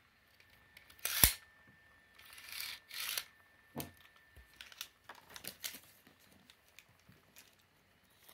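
Metal Beyblade top spinning in a plastic stadium, a faint steady whine under quiet handling noise. A sharp knock about a second in is the loudest sound, followed by brief rustles and a few soft clicks.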